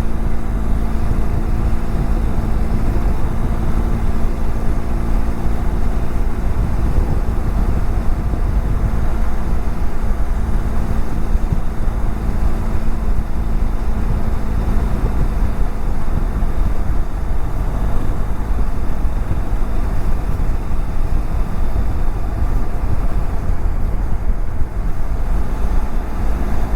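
Steady wind rush over a helmet-mounted camera microphone on a BMW F700GS motorcycle at road speed, with the even hum of its parallel-twin engine underneath.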